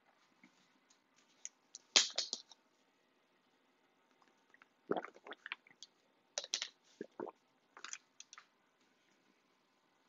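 Scattered short clicks and taps in a few small clusters, about two, five, six and a half and eight seconds in, with near quiet between them.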